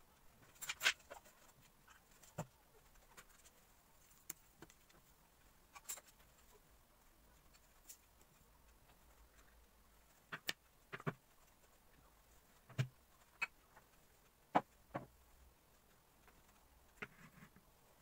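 Wooden bamboo plates, wooden cutlery and small ceramic bowls being set down on a table: about a dozen short, irregularly spaced knocks and clacks with quiet in between.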